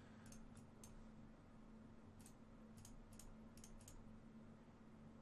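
Near silence with a scatter of faint computer mouse and keyboard clicks, some in quick pairs, over a faint steady hum.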